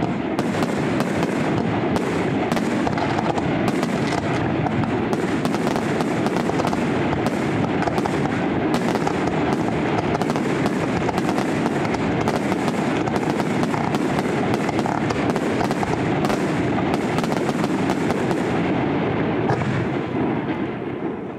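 Aerial firework shells bursting in a dense, continuous barrage, bangs following one another several times a second over a steady crackle. The bangs ease off briefly near the end.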